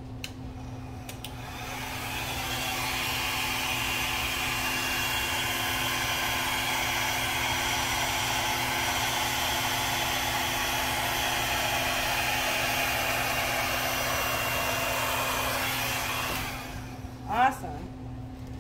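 Handheld hair dryer running steadily on its high setting, blowing wet acrylic paint across a canvas. It starts about a second and a half in and switches off about two seconds before the end.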